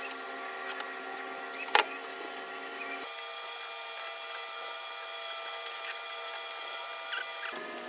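Background music of held chords that change about three seconds in and again near the end, with a few light clicks and one sharp click about two seconds in.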